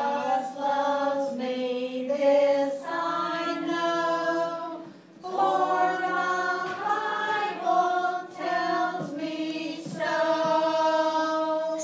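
A group of voices singing a song, with long held notes and a short break about five seconds in, little or no instrumental backing.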